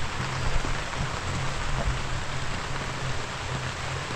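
Light rain falling in a steady, even hiss as a storm passes, with a steady low hum underneath.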